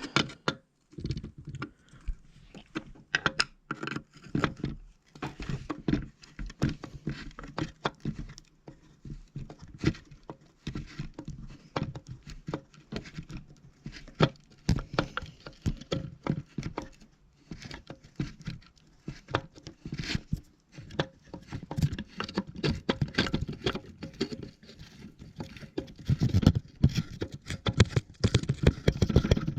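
Hands handling and cleaning parts of a fire-alarm bell: a dense, irregular run of small taps, clicks and knocks, with a louder cluster near the end.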